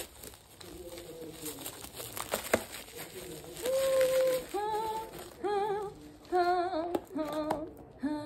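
Plastic bubble wrap crinkling and rustling as it is cut and pulled off a small boxed parcel. From about three and a half seconds in, a woman hums a wavering, wordless tune in short phrases.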